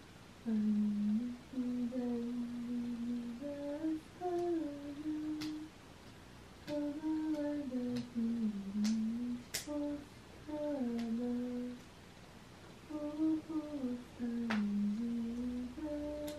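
A woman humming a slow tune in short phrases with pauses between them, with a few faint clicks.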